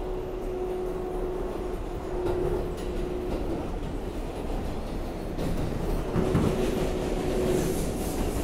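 R188 subway car running along the line, heard from inside the car: a steady rumble of wheels on rails, with a faint steady whine that fades out and comes back. A high hiss rises near the end.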